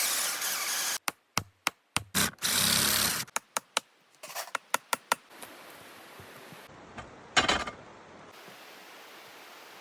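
Woodworking in a workshop: a loud burst of scraping noise, then a run of sharp knocks on wood with another short noisy stretch among them. After that comes a faint steady hiss, broken by one loud thump about seven and a half seconds in.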